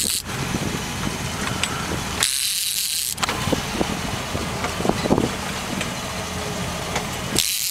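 Boat engine running steadily, with scattered light clicks. Two bursts of rushing hiss come through, one about two seconds in and one near the end.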